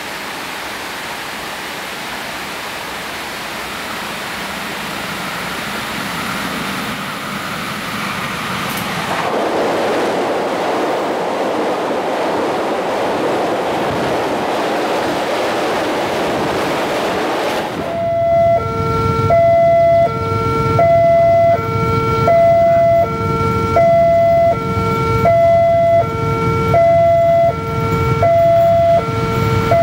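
A passenger train passing close at speed, its carriages making a loud rushing noise of wheels and air. About two-thirds of the way in, this gives way to a railway level-crossing warning signal: a two-tone chime that repeats, alternating high and low.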